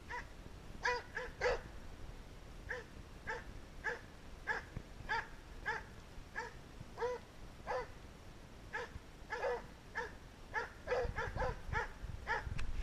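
Hunting dog barking over and over at a steady pace, about one bark every half second, the barks coming a little quicker near the end.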